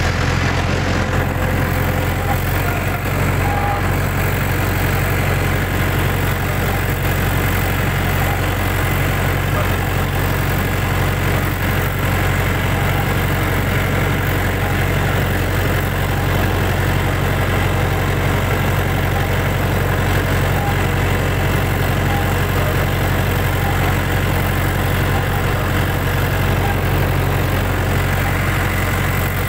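Tractor engine running at a steady speed as the tractor is driven across a tilled field, heard from the driver's seat as an even, unbroken low drone.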